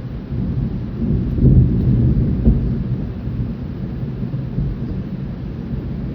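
Thunder rumbling low over steady rain, swelling about a second in, with its loudest cracks between one and three seconds, then slowly dying away.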